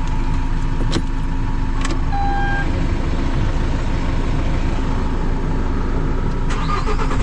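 Vehicle engine running steadily at idle, with a few sharp clicks and a short electronic beep about two seconds in.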